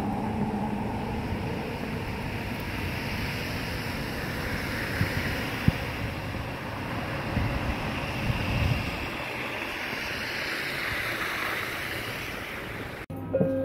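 Steady street noise of car tyres hissing over a slushy, snow-covered road, with wind buffeting the microphone. Near the end it cuts off abruptly and clear chime-like tones begin.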